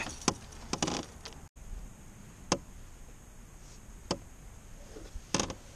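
Scattered sharp clicks and knocks of fishing gear being handled in a plastic canoe, as hands work a hook free of the landing net, with a brief dropout about a second and a half in and a few single knocks after it.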